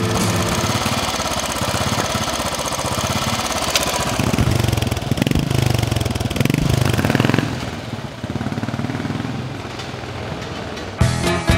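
Royal Enfield single-cylinder motorcycle engine running, revved up in several swells in the middle, then running more quietly near the end.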